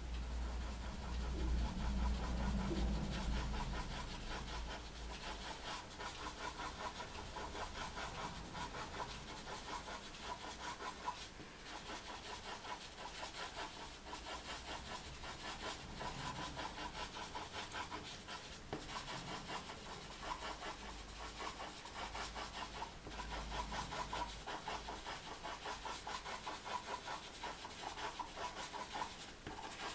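Caran d'Ache pastel pencil scratching on textured pastel paper in quick, short, repeated dabbing strokes: a steady rhythmic rasp.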